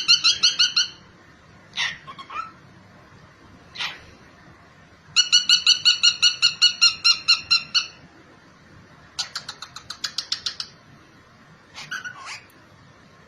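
A pet parrot calling in quick runs of repeated clear notes, about four to five a second. A few short single squawks come between the runs, and a faster clicking run follows about nine seconds in.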